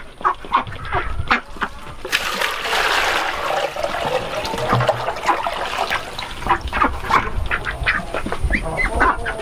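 Ducks quacking repeatedly in short calls, with a splashing rush of water for a couple of seconds about two seconds in as dirty drinking water is poured out of a tub.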